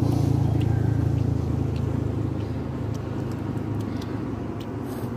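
A road vehicle's engine driving past, a low steady rumble that is loudest in the first second and slowly fades.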